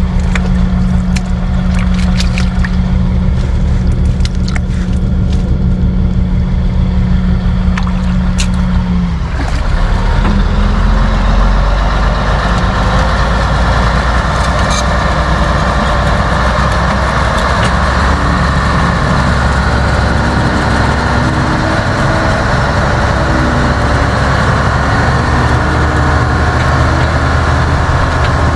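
Diesel engine of heavy tile-drainage equipment running steadily. About nine seconds in its note drops and deepens and it keeps running under heavier load.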